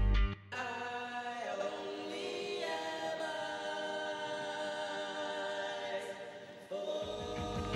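Background music at a break in the song: the beat drops out and choir-like voices sing long held chords that change a few times. The drums and bass come back in near the end.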